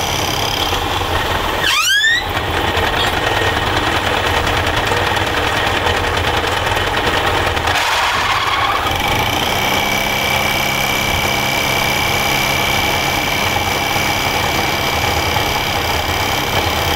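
Metal lathe running with a steady mechanical hum. A brief rising squeal comes about two seconds in, and from about halfway a steadier whine settles in.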